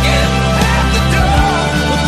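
Rock music playing loudly, a full band mix with sustained bass notes.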